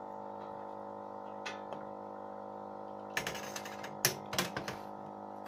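Electric pump of an air-conditioner cleaning kit humming steadily with its water tank empty, so it is no longer spraying. A few light clicks and knocks, bunched in the second half.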